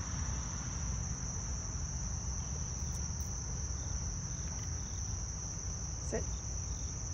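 Steady high-pitched chorus of insects buzzing without a break, over a low rumble.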